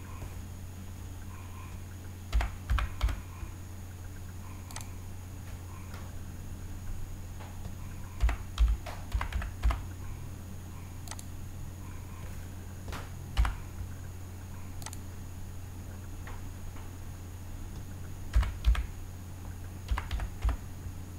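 Computer keyboard keys typed in short bursts of a few keystrokes with pauses between, as numbers are keyed in. A steady low hum runs underneath.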